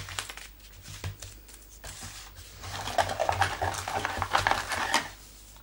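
Hands handling a smartphone's cardboard box and paper inserts: a few light knocks, then from a little before halfway a louder stretch of rustling and scraping of cardboard and paper that stops shortly before the end.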